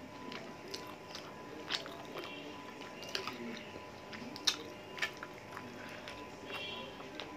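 Close-up eating sounds: chewing chicken and rice, with wet mouth smacks and short sharp clicks at uneven intervals, the loudest a little after halfway. Fingers pick meat off a chicken leg bone on a plate.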